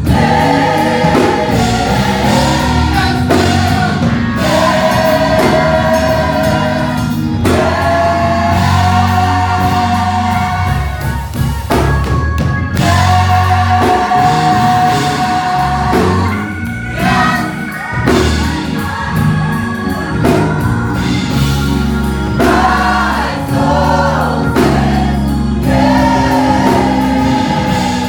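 Gospel choir singing in harmony with a band, held sung notes over steady bass and drums.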